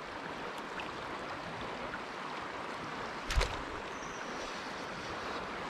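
River water rushing steadily over a shallow riffle. A single knock sounds about three and a half seconds in, and a faint high whine is heard shortly after.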